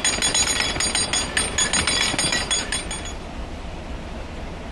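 Canal lock paddle gear being wound with a windlass: the metal pawl clicks rapidly over the ratchet with a ringing metallic tone, stopping about three seconds in. A steady low rumble runs underneath.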